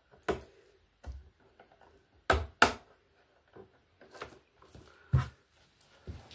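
Sharp plastic clicks and taps from PTFE filament tubes and their blue retaining clips being pushed into the rear ports of an Anycubic ACE Pro filament box, with softer handling rustle between. The two loudest clicks come close together about two and a half seconds in.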